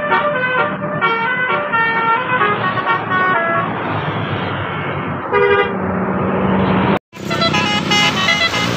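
Indonesian bus 'telolet' multi-tone horn playing a quick tune of stepped notes, then a stretch of engine and road noise broken by one short horn note. After a brief sudden dropout, another telolet horn tune starts.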